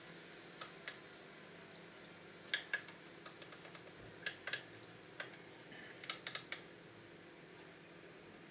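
Light, sharp clicks and taps of small plastic parts being handled inside an opened VCR mechanism, coming irregularly and in quick little clusters, over a faint steady hum.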